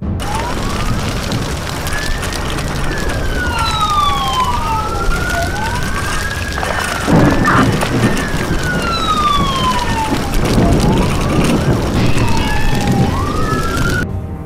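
Several police sirens wailing at once, their pitch sweeping up and down and overlapping, over a steady bed of city noise. A louder rush of noise swells about halfway through.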